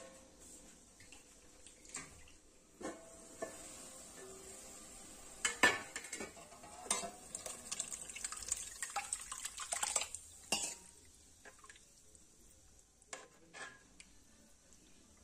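Steel spoon clinking and scraping against a stainless-steel bowl and pan as raw goat blood is scraped into the pan and stirred in: scattered sharp clinks, one loud clank about halfway through, and a busy stretch of scraping just after.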